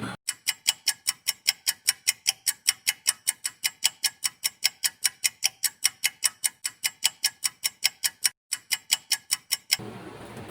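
Rapid, even clock-like ticking, about five sharp ticks a second, with a brief break near the end and no room sound between the ticks.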